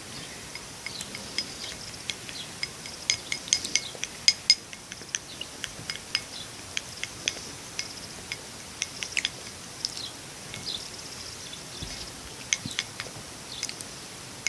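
Light, irregular clinks and taps of a stirrer against a small tea glass as liquid soap, shower gel and salt are mixed into slime. The clinks are busiest about three to five seconds in.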